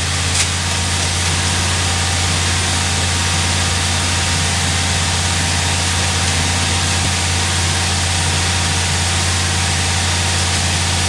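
Steady low mechanical drone with a constant hum, unchanged throughout.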